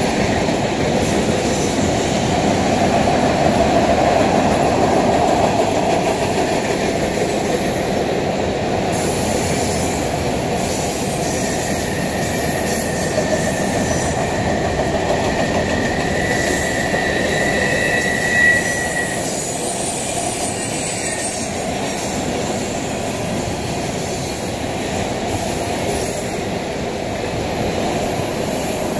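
Long freight train of covered hopper cars rolling past on curved track: a steady rumble of wheels on rail. A thin, high wheel squeal comes in about eleven seconds in, grows, and fades out a little before halfway through the second half.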